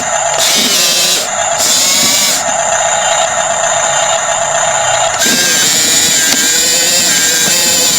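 RC bulldozer's small electric drive motors and gears whining steadily, with the pitch shifting a few times.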